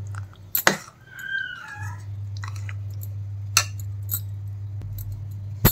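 A spoon clinks sharply against a metal cooking vessel four times, the last clink the loudest, over a steady low hum. A brief high chirping call sounds about a second and a half in.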